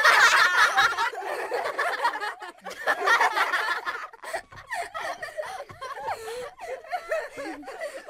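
A group of people laughing together, loudest in the first second and again around three seconds in, then carrying on more quietly with chuckles and snickers.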